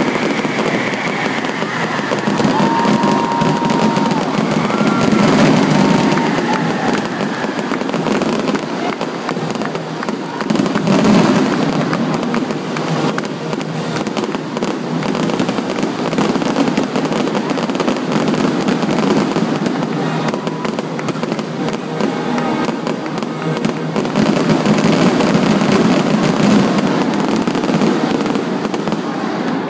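Fireworks finale: a dense barrage of overlapping aerial shell bursts and crackles, with no gap between them.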